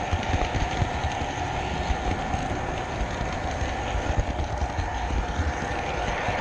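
Model train running along layout track, heard from a camera riding on the train: a steady whine over a rattling rumble, with irregular clicks and knocks from the wheels on the rails.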